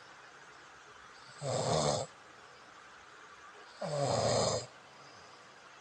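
A person snoring: two snores about two and a half seconds apart, each lasting under a second and dipping slightly in pitch.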